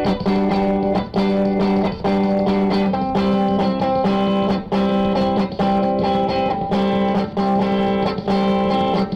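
Electric guitar played through a homemade effects box and pedal into a small amplifier: sustained chords that change about once a second over a steady low drone.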